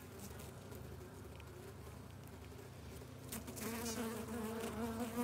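Honeybee workers buzzing on and around a queen cage held close, a steady hum; a louder, wavering buzz joins about three and a half seconds in.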